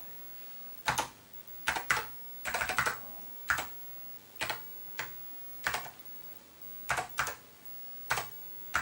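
Slow, separate keystrokes on an Apple II keyboard, about one key every half second to a second, some struck in quick pairs.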